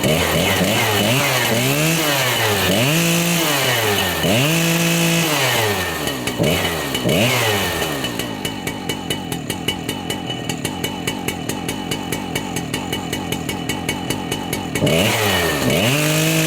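Husqvarna 3120 two-stroke chainsaw revved up and down in a series of short throttle blips, then settling to a steady idle, and revved again near the end.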